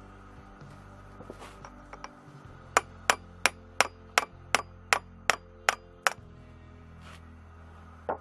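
About ten evenly spaced hammer taps on steel, roughly three a second, over a few seconds in the middle: driving the friction-clutch shaft out of a milling machine's feed gearbox.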